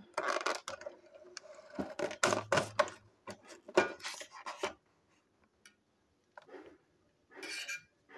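Scissors snipping and scraping through the tape on a cardboard toy box: a dense run of sharp clicks and scrapes for about the first five seconds, then a few faint taps and a short rustle near the end.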